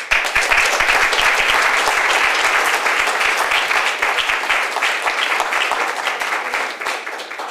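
Audience applauding, many hands clapping at once; it starts suddenly and eases off slightly near the end.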